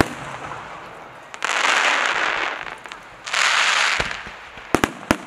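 Aerial fireworks going off: two long crackling bursts of about a second each, then a quick run of sharp bangs near the end.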